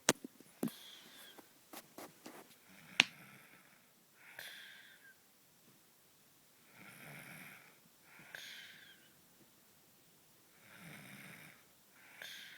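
Someone snoring in slow breaths, about one every four seconds. Each snore comes in two parts, the second higher-pitched and falling away. A few sharp clicks come in the first three seconds, the loudest about three seconds in.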